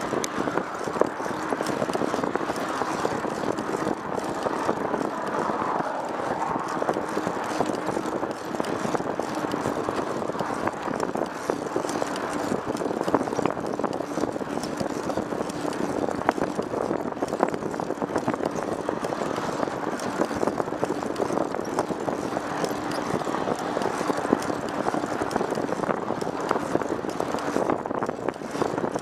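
Steady noise of a moving vehicle: an even rush with a faint constant drone and many small rattles and clicks throughout.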